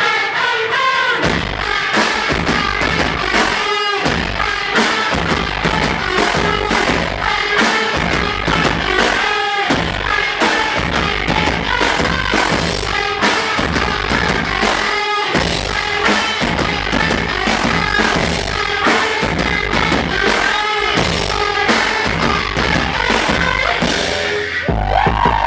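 Loud live noise-pop band music: heavy drum beat, distorted electric guitar and female singing.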